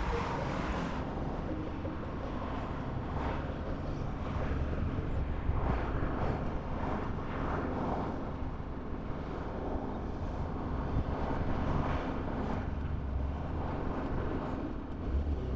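Road traffic noise from cars passing on a busy road, a continuous rumble with repeated swells, with wind on the microphone.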